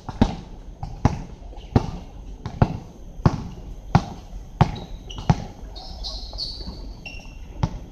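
Basketball bouncing on a hard outdoor court: a steady dribble of about eight bounces, roughly one every three-quarters of a second, then a pause and one more bounce near the end. A few short high squeaks come during the pause.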